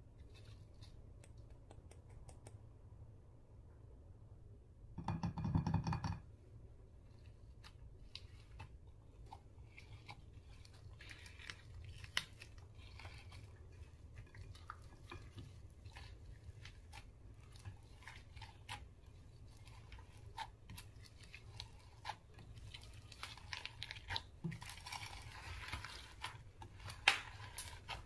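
Slime being squished and mixed by hand, with many small crackling clicks and pops that grow denser near the end. About five seconds in, a louder pitched tone lasts about a second.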